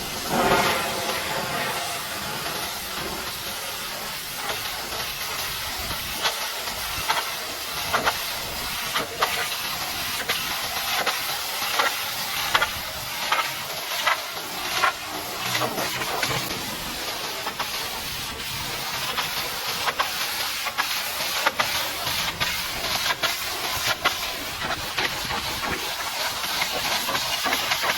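High-pressure washer jet spraying water against a vehicle's bodywork: a steady hiss broken by frequent short, sharp spatters, thickest in the middle stretch.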